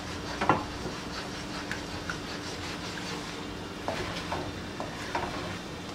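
Spatula stirring coconut milk and water in a nonstick wok, with a few short scrapes and light knocks against the pan, the loudest about half a second in and several more near the end, over a steady low hum.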